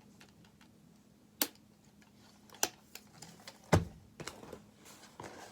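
Small hard objects being handled: a few separate sharp clicks and knocks, the loudest about two-thirds of the way in, followed by some lighter ticks.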